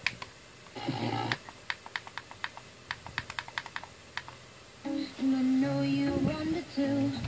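Rapid clicking, about four clicks a second, as the tuning button of a Sony FM/AM digital synthesizer tuner is pressed and the tuner steps down through the FM band. Fragments of a received broadcast come from the tuner's speaker, briefly about a second in and for a longer stretch from about five seconds in.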